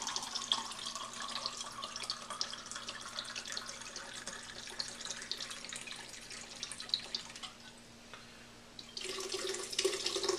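Rum pouring from a bottle in a steady trickle that fades out about eight seconds in. About a second later comes a louder, ringing pour into the blender jar.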